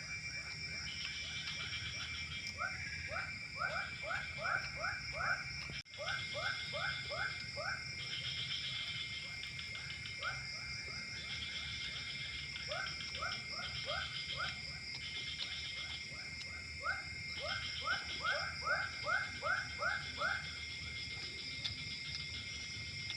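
Frogs calling at dusk: one frog gives runs of quick, sharp notes, about four a second, in bursts of five to eight. Behind it runs a steady high-pitched chorus of frogs and insects that pulses on and off.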